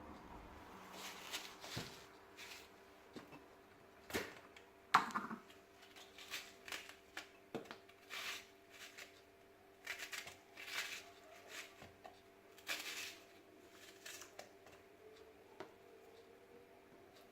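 Faint, irregular clicks, taps and short rustling scrapes of kitchen handling, over a faint steady hum.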